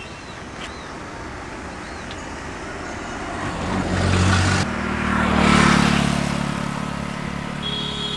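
A road vehicle passing by on the highway. Its engine hum and tyre noise build up, are loudest a little past halfway, and then fade away.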